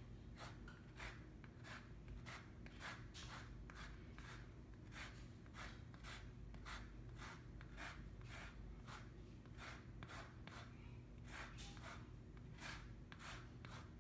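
Lemon zest being scraped off with a rasp grater: faint, even scraping strokes, roughly two a second.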